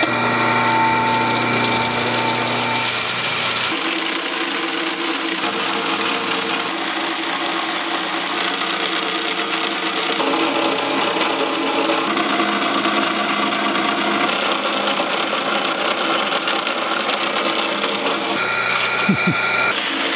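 Vintage ship saw, a huge band saw driven by a three-phase motor, running with a new blade and cutting through a timber slab as a steady mechanical running and sawing noise. The new blade is cutting easily.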